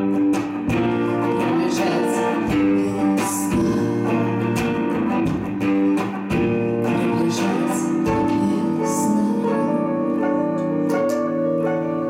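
Live band music: an electric guitar plays sustained, ringing chords while a large frame drum is struck with a soft beater in a slow, regular pulse.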